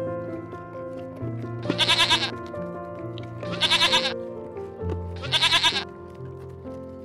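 Three bleating animal calls, each about half a second long with a fast quaver, evenly spaced, over background music.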